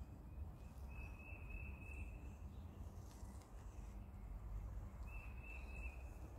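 Outdoor ambience: two high, steady-pitched trills, each about a second long, one about a second in and one about five seconds in, over a low rumble.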